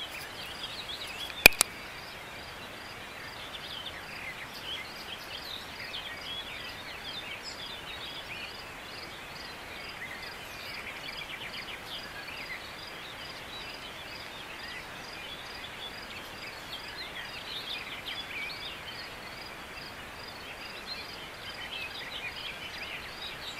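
Outdoor ambience of scattered small-bird chirps over a steady low hiss, with a faint high chirp repeating evenly throughout. A single sharp click about one and a half seconds in is the loudest sound.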